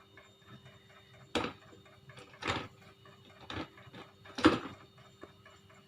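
Four sharp knocks or clinks about a second apart, the third-loudest first and the last the loudest, over a steady fast ticking of about five ticks a second.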